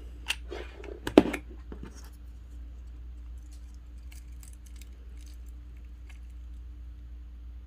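Small handling sounds from hot-gluing a sprig to a craft birdhouse: one sharp knock about a second in and a few faint ticks, over a steady low hum.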